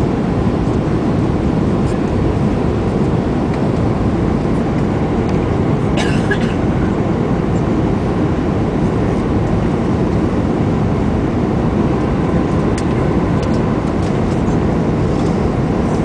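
Steady engine and airflow noise inside the cabin of a jet airliner on final approach, with a faint steady whine through it. There is a brief rattle about six seconds in.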